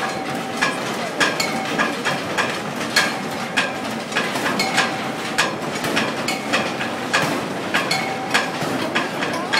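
Metal being struck over and over, uneven ringing clangs about two a second, over a steady background din.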